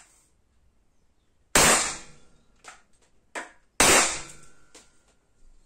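Two shots from an LTL Alfa 1.50 .50-calibre gas-powered defence pistol firing steel balls, about two seconds apart, each a sharp crack with a short ringing tail. Lighter clicks follow the shots.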